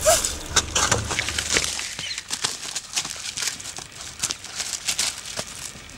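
Hurried footsteps crunching through dry fallen leaves and brush: a quick, irregular run of crackles and rustles. Low background music fades out in the first second or two.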